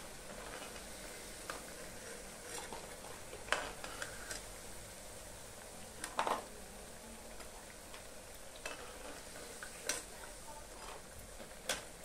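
Moong dal pakode deep-frying in hot oil in a metal kadai, sizzling steadily. A steel spoon stirs them and lifts them out, scraping against the pan and knocking on its rim several times with sharp clinks.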